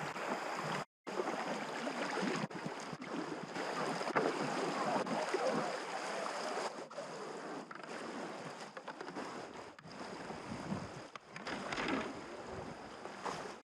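Fast river water rushing and splashing around a packraft on a stretch of current. It drops out for a moment about a second in.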